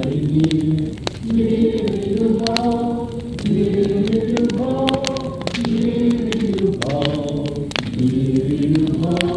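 A group of voices singing together in harmony with long held notes, accompanied by the sharp pops and crackles of a burning wood fire.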